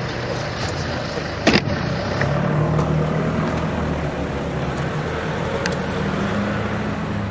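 Police pickup truck's engine running steadily as the truck moves off, with a single loud knock about a second and a half in.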